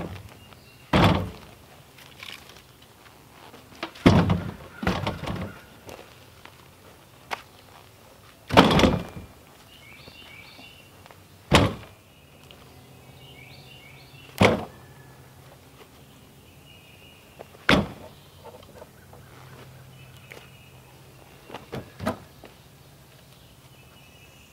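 Split firewood pieces tossed one at a time into a wheelbarrow tub: a sharp wooden knock every two to four seconds, about nine in all, a couple of them landing as quick double knocks.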